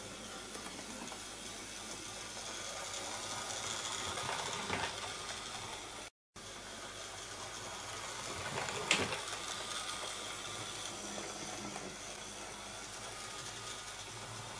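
OO gauge model steam tank locomotive, a Sonic Models LNER A5, running on the layout track: a steady whirr of its motor and gears with wheels rattling over the rails, sounding well oiled near the end of its running-in. A short break in the sound about six seconds in and a single sharp click about nine seconds in.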